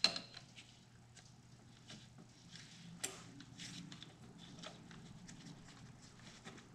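Light clicks and rustling from gloved hands handling a spark plug wire and its rubber boot on the engine, with a sharp click at the start and another about three seconds in.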